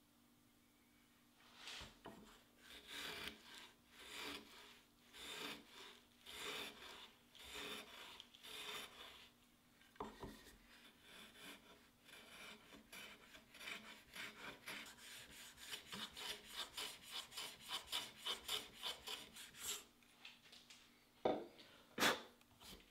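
Shop-made wooden router plane paring the floor of a half-lap joint in repeated short scraping strokes. The strokes are slower at first, then a quick run of about three a second. The cutting stops near the end, followed by two sharp swishes as the shavings are brushed off.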